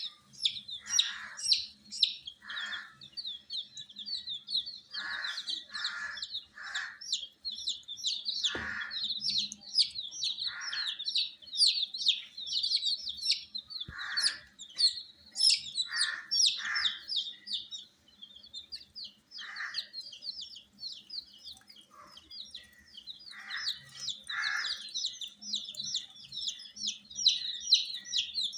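A brood of baby chicks peeping without a break, many short high peeps overlapping, with lower, coarser calls every second or two. A single sharp tap about a third of the way through.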